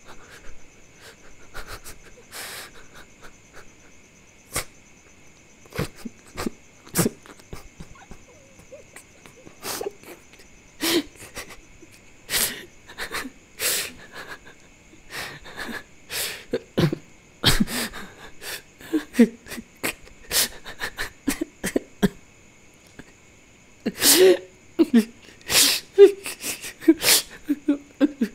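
People crying in grief: irregular sharp gasping sobs and choked breaths, coming thicker and louder near the end.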